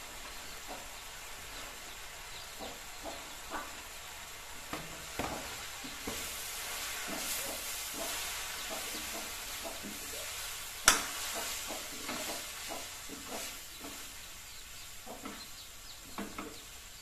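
Chopped leafy greens sizzling in a steel wok on a gas stove while a spatula stirs and scrapes them in short, irregular strokes. One sharp clack stands out about eleven seconds in.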